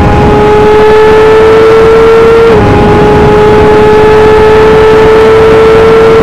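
Open-wheel race car's engine at full throttle, recorded onboard, loud: the revs climb steadily, drop sharply with an upshift from fifth into sixth gear about two and a half seconds in, then climb again.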